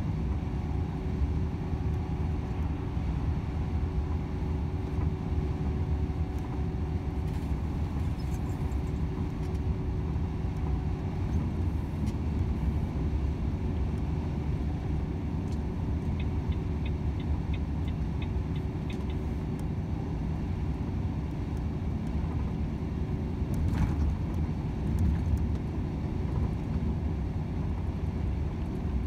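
Volvo FH 500 truck's 13-litre six-cylinder diesel engine running steadily under way, with a constant rumble of engine and road noise. A short run of light, evenly spaced ticks comes in about sixteen seconds in.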